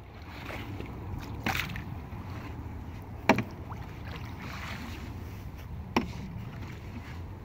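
Paddle strokes in a Pelican 15.5 canoe: soft water swishing over a low wind rumble, with three sharp knocks of the paddle shaft against the canoe's edge, the second loudest.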